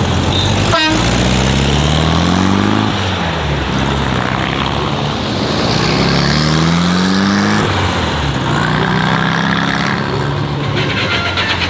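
Modified classic VW Beetle accelerating away, its air-cooled flat-four engine rising in pitch twice as it pulls through a gear change. A single sharp click just under a second in.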